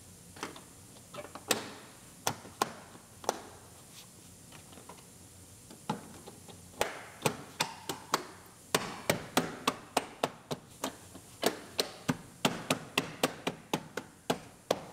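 Plastic seat-base trim covers on a Buick Enclave's second-row seats being snapped and pressed into place, making a run of sharp plastic clicks and knocks. They are scattered at first, then come about three a second from about seven seconds in.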